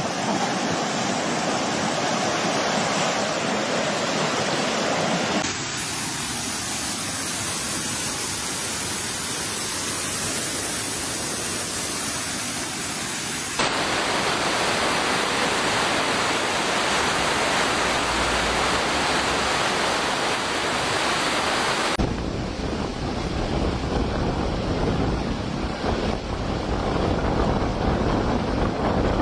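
Rushing floodwater: a steady, even rush of a swollen, fast-flowing river, its character changing abruptly three times as the footage cuts between clips, with more low rumble in the last part.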